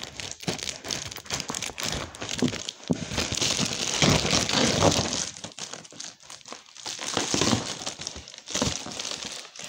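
A shipping mailer being handled and pulled open by hand: dense crinkling and rustling of the packaging, loudest in the middle, with short pauses near the end.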